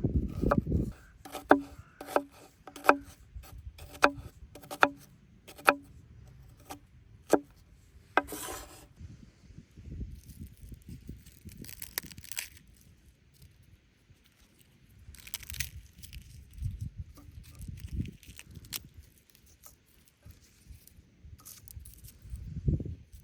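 Sharp knocks on wood, about eleven strokes over the first seven seconds, like chopping on a wooden board. A short scrape follows, then quieter rustling and handling sounds.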